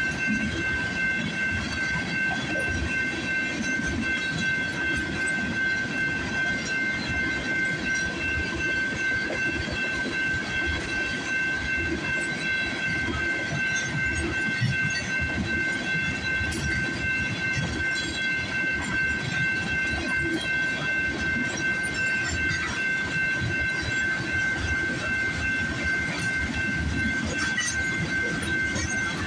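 Freight train's tank cars and covered hoppers rolling past at speed: a steady rumble and clatter of steel wheels on the rails. A steady high ringing tone sounds over it throughout.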